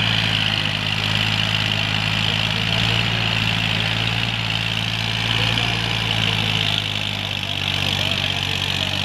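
Massey Ferguson 1035 DI tractor's diesel engine running at a steady speed.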